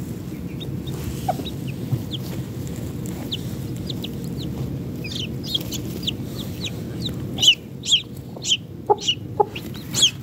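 Baby chicks peeping: short, high, falling chirps, scattered at first, then coming quick and loud in the last few seconds. A low rumbling noise runs underneath and stops about three quarters of the way through.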